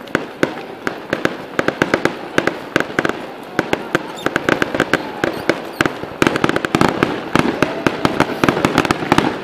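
Fireworks display: a rapid, irregular string of bangs and reports, several a second, going on without a break.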